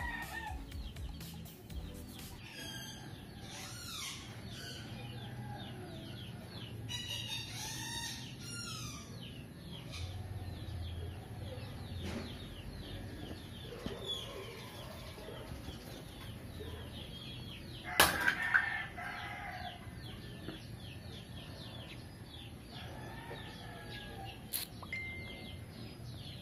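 Birds chirping and calling throughout, with clusters of calls early on and one louder call about two-thirds of the way through.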